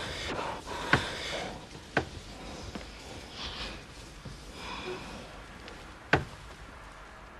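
Quiet breathing and rustling, with three sharp clicks: about a second in, two seconds in, and near the end.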